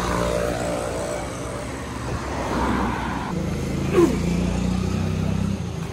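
Steady engine hum and road noise from inside a moving vehicle, with one short sharp knock about four seconds in. The hum drops away shortly before the end.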